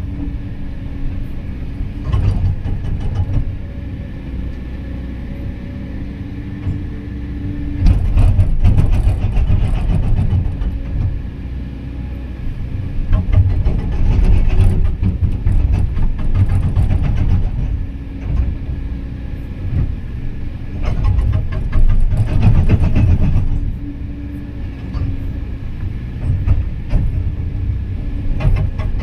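Excavator diesel engine running steadily while its hydraulic rock breaker hammers in several bursts of a few seconds each, rapid striking blows that rise above the engine between pauses.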